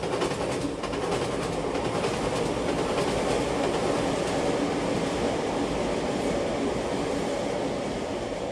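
A steady, loud rumbling noise with faint rapid clatter in the first few seconds, slowly fading near the end.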